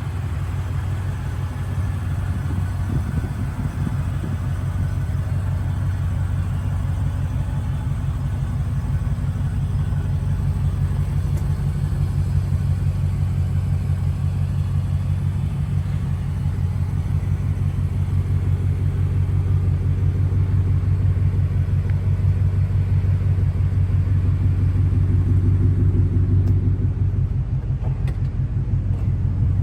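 Ford Raptor R's supercharged 5.2-litre V8 running steadily with a deep, even drone that grows slightly louder over the stretch.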